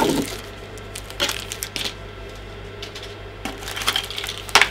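Unboxing handling noise: small plastic trimmer accessories and their packaging being picked up, set down and rummaged in a cardboard box, giving scattered clicks, taps and rustles. The sharpest click comes near the end.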